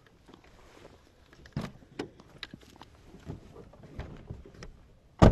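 Footsteps and handling noise as people walk off in the dark: scattered irregular knocks and rustles, with one sharp, loud knock near the end.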